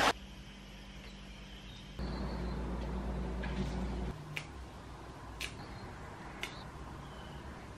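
Metal kitchen tongs clicking against a bowl while spaghetti is served: three light clicks about a second apart, over a low steady hum that is louder for about two seconds before the clicks begin.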